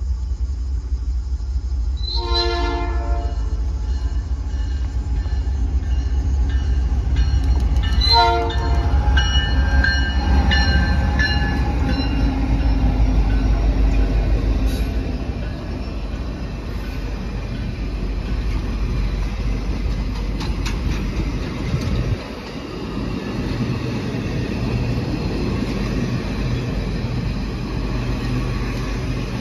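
A diesel-led passenger train passing: the lead locomotive's air horn sounds near the start and again about eight seconds in, over the deep rumble of the GE and EMD diesel locomotives going by. After about fifteen seconds the rumble drops to the lighter, steady running and wheel clatter of the passenger cars rolling past.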